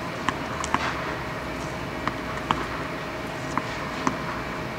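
Tennis balls being struck and bounced on an indoor clay court: about half a dozen sharp, scattered knocks over a steady background hum.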